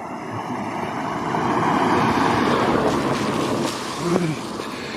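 A car driving past close by, its tyre noise swelling to a peak about two to three seconds in and then fading, with the hiss of tyres on a wet road.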